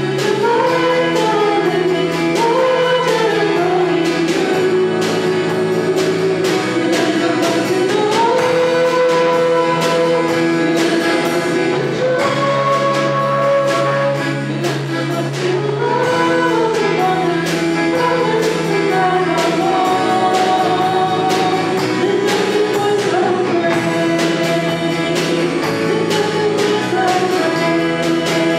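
Live worship band playing a song: several voices singing the melody together over acoustic guitar, a second guitar and a drum kit keeping a steady beat.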